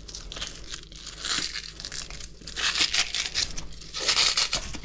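The tough, leathery skin of a leatherjacket fish being torn and peeled off by hand, in three rasping pulls.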